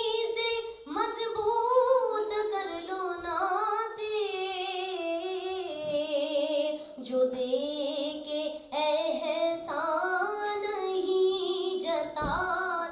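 A woman singing a naat solo and unaccompanied through a microphone, drawing out long ornamented phrases with wavering, sliding held notes.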